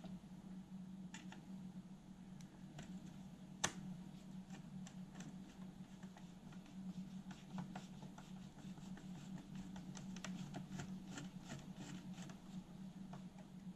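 Hands working the cassette deck's tape mechanism and its ribbon wiring into place: a run of small plastic clicks and scratches, with one sharp click about four seconds in, over a steady low hum.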